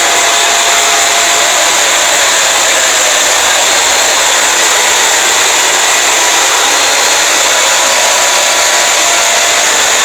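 Fake emergency alert alarm audio, distorted into a loud, steady harsh hiss with faint steady tones beneath it.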